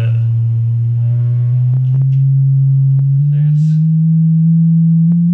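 Car-audio subwoofer in a plywood speaker box playing a tone-generator frequency sweep: a loud low tone that climbs steadily in pitch in small steps, with fainter overtones above it. A few short clicks are heard along the way.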